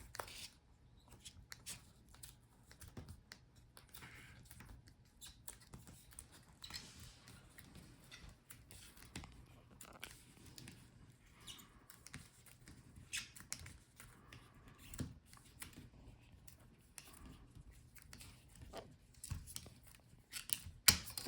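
Adhesive strips being peeled off a laptop display's back cover to free the screen rails: faint, intermittent peeling and scraping with small clicks, and a sharper click near the end.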